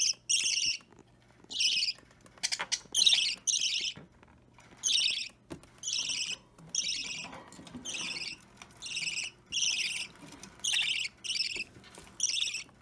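Budgerigar chick about three weeks old giving short, repeated high-pitched begging calls while being hand-fed, roughly one call a second.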